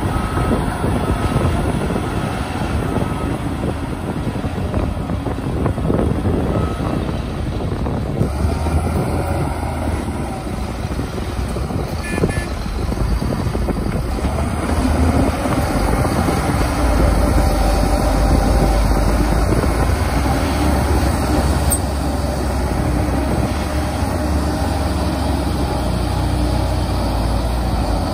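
Shantui DH17 C2 crawler bulldozer working under load as it pushes soil against a stuck dump truck, its diesel engine running as a steady, heavy mechanical din. A deeper low rumble builds about halfway through and holds.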